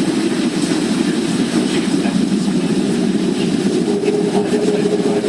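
Steady low hum inside a Boeing 737 cabin on the ground, with a steady tone joining it about four seconds in.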